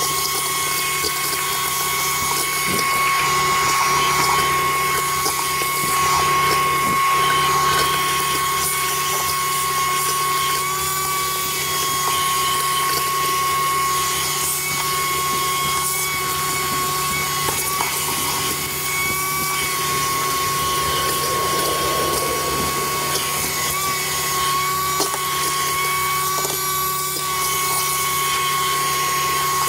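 Shop vacuum running with a steady high whine, its hose and crevice nozzle sucking up loose rust and grime; the pitch wavers briefly a few times as the nozzle is pushed into tight spots.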